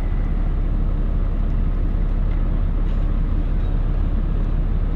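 Boat engine running steadily under throttle, a low rumble, as the boat is powered up onto its trailer.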